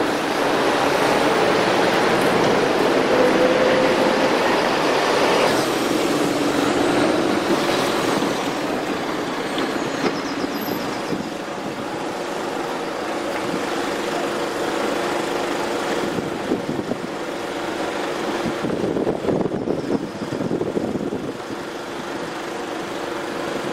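Road traffic moving off as the level crossing reopens: a lorry's engine pulls away with cars, then a steadier traffic hum with occasional knocks.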